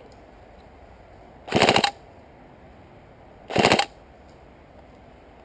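Airsoft rifle firing two short full-auto bursts of rapid clicking shots, each about a third of a second long, the second about two seconds after the first.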